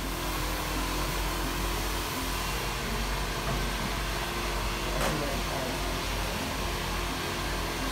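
Handheld hair dryer running steadily with an even blowing noise, with a brief click about five seconds in.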